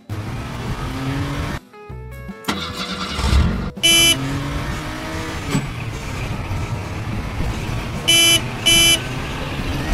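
Cartoon car sound effect: a car engine running and revving, with three short horn honks, one about four seconds in and two close together near the end.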